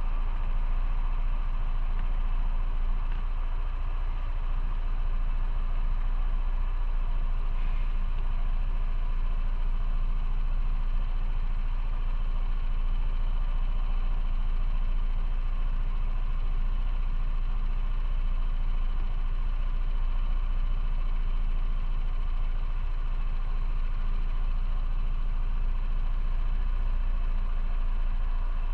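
Motorcycle engine running at a steady low hum with no change in revs, along with even road or wind noise.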